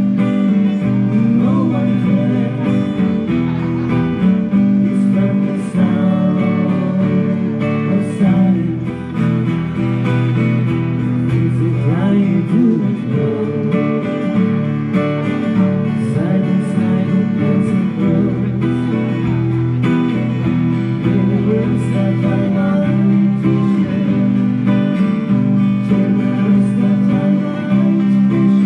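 Live acoustic music led by acoustic guitar, strummed and picked.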